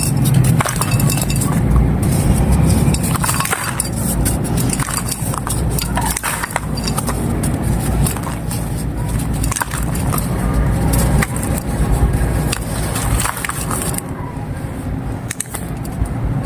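Dry baked clay crumbling and crunching, a dense, continuous run of small crackles and snaps over a low rumble.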